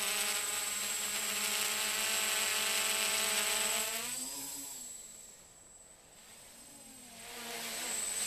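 A 6.5-ounce mini quadcopter's motors and propellers hovering with a steady buzz, like a little swarm. About four seconds in the pitch rises briefly and the sound fades away, then grows again near the end.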